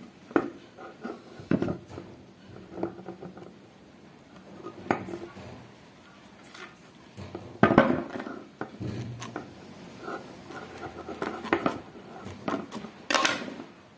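Irregular clicks, clinks and knocks of wire and small metal parts being handled while wires are spliced onto the heating resistors of a homemade soldering iron. The loudest knocks come about 8 and 13 seconds in.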